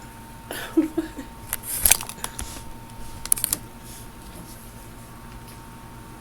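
A few short, sharp clicks and knocks, the loudest about two seconds in and another cluster near three and a half seconds, followed by a faint steady hum.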